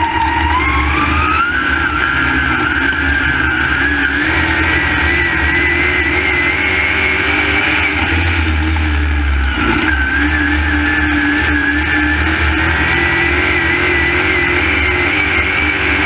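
Crate Late Model race car's V8 engine heard from inside the cockpit at racing speed. The revs climb over the first couple of seconds and hold high. They dip briefly about two-thirds of the way through, then build again.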